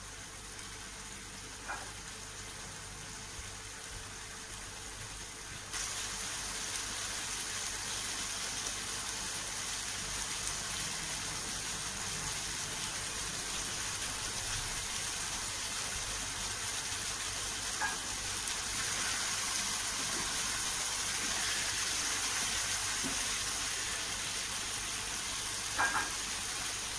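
Orek tempe with shrimp in sweet soy sauce sizzling in a non-stick wok, a steady hiss as the sauce cooks down into the tempe and tofu. The hiss grows a little louder about six seconds in, with a few faint clicks.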